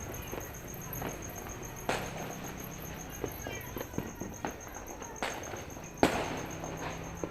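Distant fireworks banging at irregular intervals, mostly faint pops, with the loudest bang about six seconds in and its echo trailing after it.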